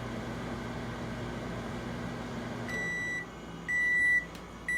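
Microwave oven running with a steady hum, which cuts off about two and a half seconds in as the oven sounds its end-of-cycle beeps: two beeps, with a third starting at the very end.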